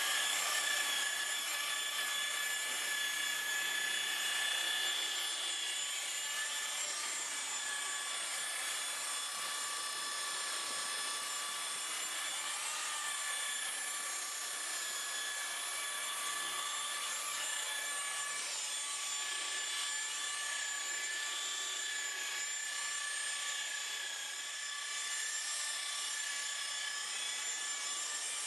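Electric polisher (buffer) running steadily on car paint, a high motor whine with a rubbing hiss from the pad.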